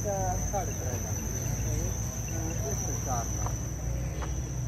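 Steady, high-pitched insect chorus trilling without a break, over a low outdoor rumble, with brief background voices just after the start and about three seconds in.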